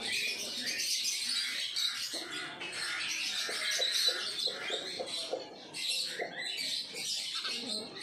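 House sparrows chirping continuously, a busy run of short high chirps that barely pauses.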